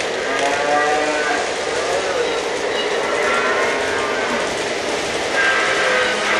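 Recorded cattle moos from a Lionel Vision Line livestock car's onboard sound system, several calls in a row, over the steady running noise of an O-gauge model train rolling on three-rail track.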